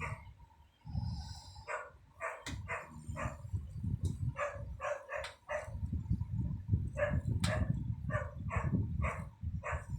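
Low, rough snoring of a sleeping woman, with a dog barking over it in three quick runs of short, high barks: about two seconds in, about four and a half seconds in, and from about seven seconds to near the end.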